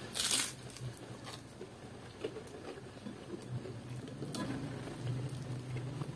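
A person eating rice and fried salted fish by hand: a short, sharp noisy bite just after the start, then chewing and small wet clicks of fingers mixing rice on a plate. A steady low hum runs underneath.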